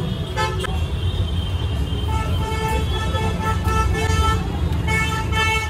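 Street traffic rumbling, with vehicle horns tooting repeatedly, several short honks over the last few seconds.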